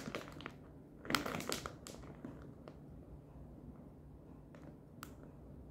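Plastic bag of dry penne rigate crinkling as it is handled, in a few short rustles, the loudest about a second in.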